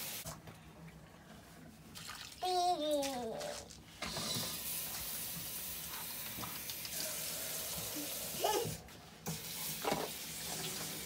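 A tap running at a sink. It comes on about four seconds in and stops briefly near the end. Before it, a small child gives one drawn-out call that falls in pitch.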